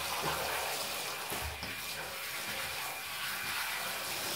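Water running from a handheld shower head, spraying steadily over a wet cat's fur and splashing into the bathtub as the cat is rinsed.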